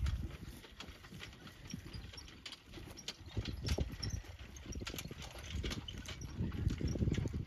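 Hackney pony trotting in harness, its hooves clip-clopping on dry turf in an uneven run of short hoofbeats, over a low rumble.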